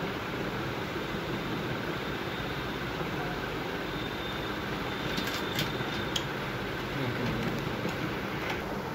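Cooling fans of an opened Hitachi LCD projector running steadily with its lamp on, a constant rushing noise, with a few light clicks of the casing being handled about halfway through.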